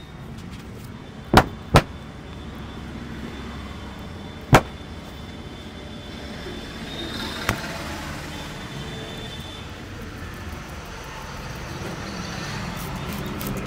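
Steady street traffic noise, cut by three sharp smacks from the barber's hands working a head and neck massage: two close together about a second and a half in, one more near five seconds, and a softer one near the middle.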